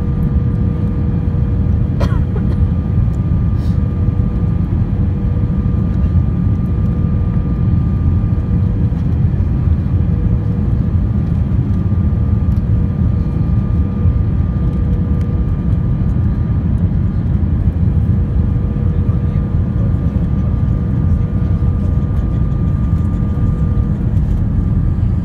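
Steady cabin noise inside an Airbus A320 on final approach: a low rumble of airflow and engines with a steady whine held at two pitches, and a brief click about two seconds in.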